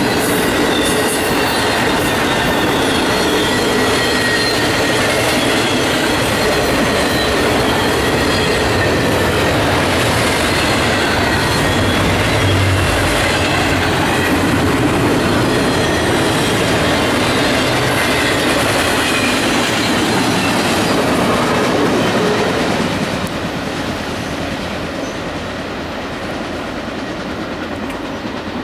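CSX intermodal freight train's well cars rolling past at speed: a steady rumble and clatter of wheels on rail, with faint steady high squeal tones. The sound falls away about 23 seconds in as the end of the train goes by.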